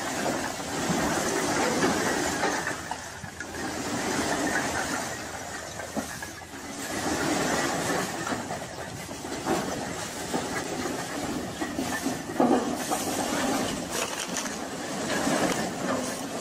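Loose clay bricks pouring out onto a pile, a continuous clattering and grinding rattle with scattered sharper clacks of brick striking brick.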